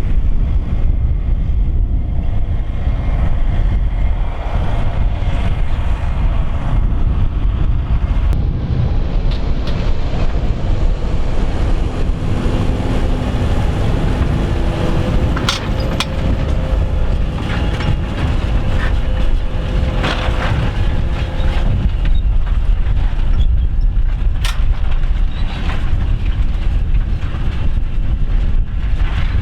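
Fendt 724 tractor working under steady load as it pulls a five-furrow plough uphill, a continuous heavy rumble. A few sharp clicks or knocks sound over it, about halfway through and again later.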